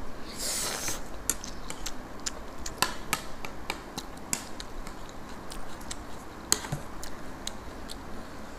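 Eating at a table: metal spoons clicking and scraping on ceramic plates along with chewing, heard as a string of irregular sharp clicks, with a short rushing noise just under a second in.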